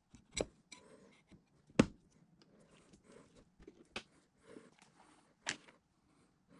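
Knocks and clinks of an electric motor being handled as its end bell is fitted back onto the housing: four sharp metal knocks, the loudest about two seconds in, with light scraping and handling noise between.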